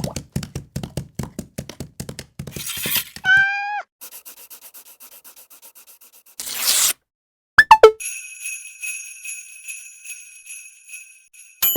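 A string of cartoon sound effects: rapid clicking, a short pitched call that slides down, a whoosh, then sleigh bells jingling steadily for the last few seconds.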